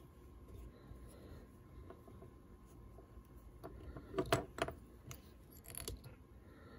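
Faint rubbing and handling sounds from fly tying, as a rabbit-fur zonker strip is wrapped around a hook held in a vise with a metal bobbin holder, with a quick run of small clicks about four seconds in and another near the end.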